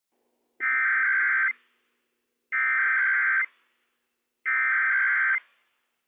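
Emergency Alert System SAME header sent over NOAA Weather Radio transmitter WWF56: three identical bursts of buzzing digital data tones, each just under a second long, about a second apart, opening a Required Weekly Test.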